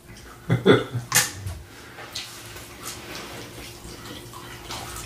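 Close-miked eating sounds: chewing and wet mouth smacks, a few sharp clicks in the first second and a half, then quieter chewing.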